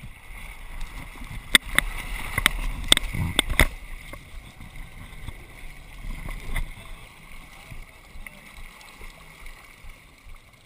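Yamaha jet ski running at low speed with water sloshing, and a quick run of sharp knocks in the first few seconds; the sound then settles to a quieter steady wash.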